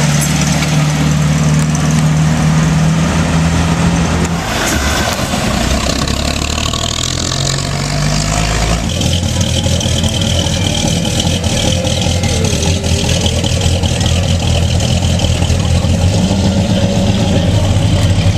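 Classic American car engines running at low revs as the cars roll slowly past, one after another. The engine note changes abruptly twice, about four and nine seconds in, with crowd chatter underneath.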